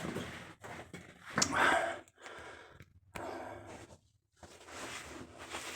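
A man's breathing and sighs in a small enclosed space, in short noisy puffs with pauses between them, the loudest about a second and a half in.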